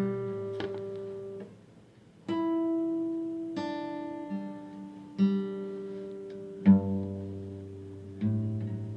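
Instrumental music: plucked guitar chords, each struck and left to ring, a new one every second or two, with a short hush about two seconds in.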